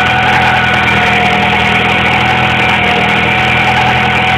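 Honda H22 four-cylinder engine idling steadily, with a steady high whine from the belt tensioner pulleys, which are singing a little. The owner traced the whine to an over-tightened balance-shaft belt tensioner pulley.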